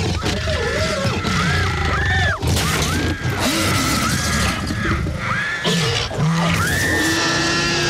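Film soundtrack of a monster attack on a car: children screaming again and again, broken by sudden crashes and breaking glass, with a huge creature's roars.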